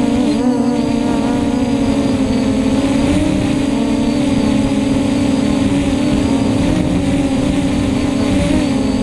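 The brushless motors and propellers of an F330 quadcopter in flight, picked up close by its onboard camera: a loud, steady buzzing hum whose pitch wobbles up and down as the throttle changes.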